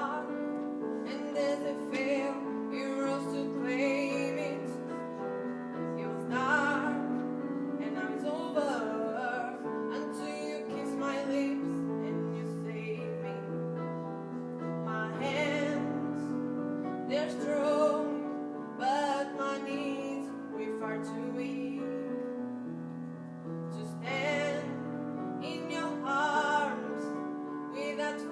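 Solo voice singing a sung ballad with vibrato, over sustained solo piano accompaniment.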